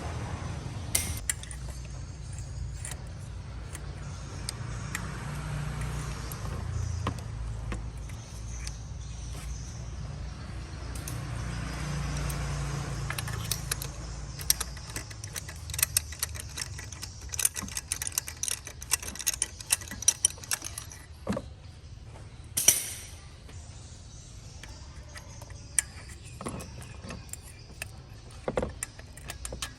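Small metal tools and parts clinking and rattling in rapid, irregular clicks, busiest through the middle of the stretch, over a low steady hum.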